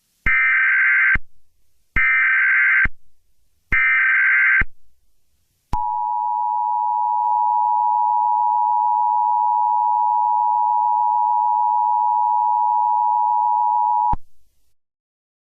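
Emergency Alert System signal: three short bursts of SAME header data tones, each about a second long, followed by the steady two-tone EAS attention signal held for about eight seconds and cut off suddenly, announcing an emergency alert message.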